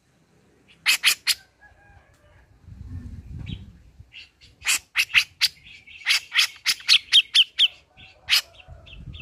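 Cucak jenggot bulbul calling: three sharp, loud notes about a second in, then a quick chattering run of sharp notes from about halfway through, closing with one more loud note. A low rumble sounds in the background around three seconds in.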